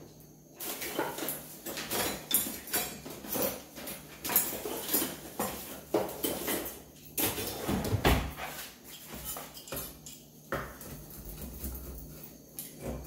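Kitchen utensils and cutlery clattering, with repeated knocks and clicks, as a bigger kitchen knife is fetched.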